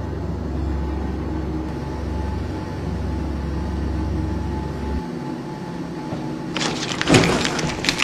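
A running furnace gives a steady low hum and rumble that cuts off about five seconds in. Near the end come loud rustling and knocking from the camera being grabbed and moved.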